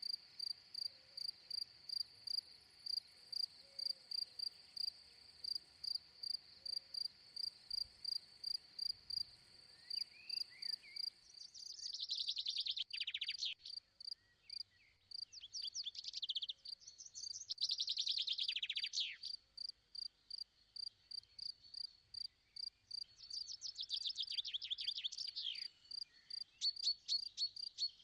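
Crickets chirping in an even rhythm, a little over two chirps a second. After about twelve seconds a bird joins in with several bursts of rapid, falling trills.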